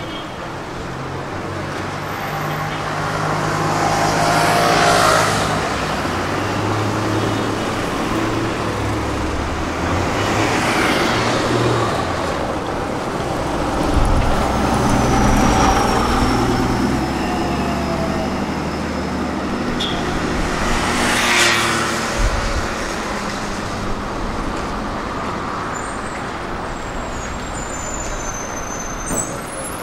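City street traffic: motor vehicles passing close by, with a steady low engine drone and several passes, about five, eleven and twenty-one seconds in.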